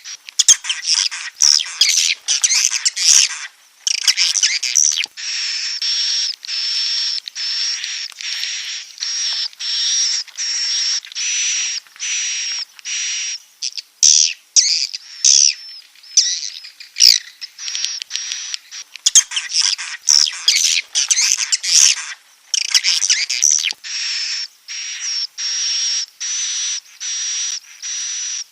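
Recorded swiftlet call used as a lure for edible-nest swiftlets: long trains of rapid, high twittering chirps, broken every few seconds by short pauses.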